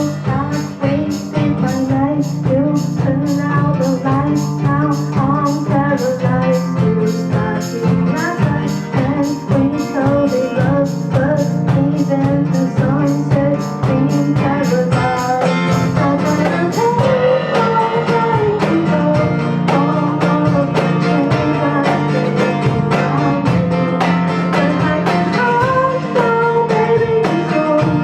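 Live acoustic guitar strumming a steady rhythm, with a voice singing the melody over it.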